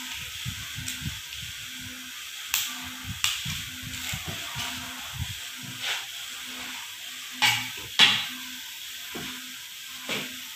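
Metal clinks and knocks of timing gears and a gear shaft being handled and fitted onto the front plate of a Mitsubishi Canter 4D34T diesel engine, with two sharper clanks about three-quarters of the way through, over a steady hiss.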